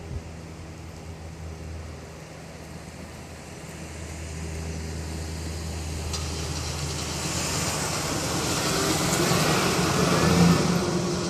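Buick car engine running steadily. About halfway through, a louder rushing noise builds, peaks just before the end, then eases off.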